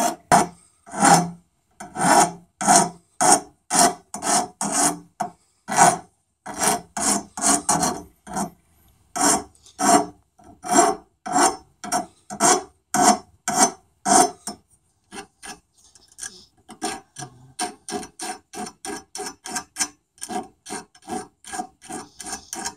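A hand file rasping back and forth across the sawn-off steel muzzle of a double-barrel shotgun, taking the sharp burrs off the cut edge and putting a slight bevel on it. The strokes are steady, about two a second. From about fifteen seconds in they become shorter, quicker and lighter.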